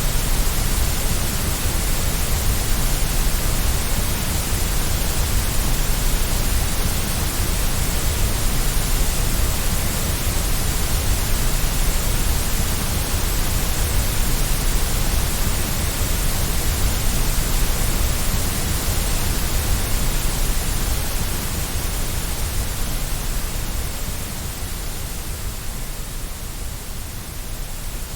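Steady white noise, an even hiss across the whole range without any tone or rhythm, easing slightly in level near the end.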